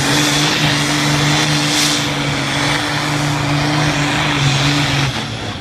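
Diesel tractor engine running hard under full load as it drags a weight-transfer sled in a tractor pull, a steady loud drone that breaks off shortly before the end.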